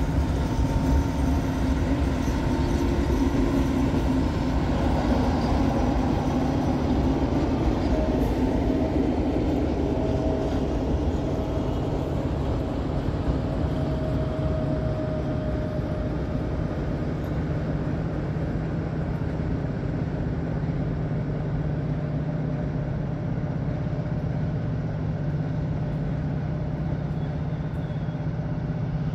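Electric multiple unit rolling past on the rails and pulling away, its running noise slowly fading. A faint whine comes through around the middle, and a steady low hum carries on underneath.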